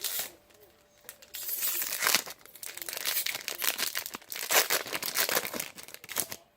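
A trading-card pack wrapper being torn open and crinkled in the hands: a short crackle at the start, then about five seconds of dense, irregular crackling that stops just before the end.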